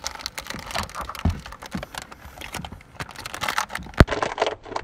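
Crinkling and crackling of a plastic cereal-bar wrapper being torn open with the teeth and handled, a rapid irregular crackle, with one sharp click about four seconds in.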